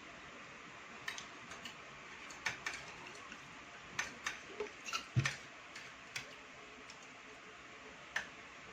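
Cutlery clinking and tapping against plates during a meal: scattered sharp clicks, with a heavier knock about five seconds in.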